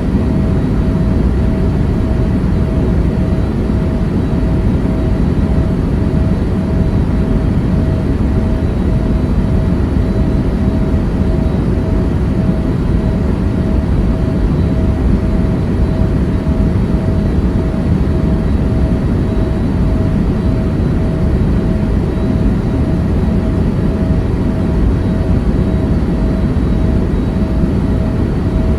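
Airliner cabin noise in flight: a loud, steady rumble of engines and rushing air with a steady mid-pitched hum over it.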